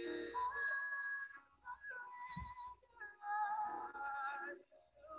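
Soft music: a slow melody of long held notes that step from pitch to pitch, with short pauses between phrases.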